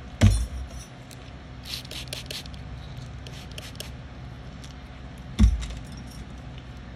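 Handling noise from small pedicure tools and a plastic medicine bottle: two dull thumps about five seconds apart, with a run of light clicks and clinks between them.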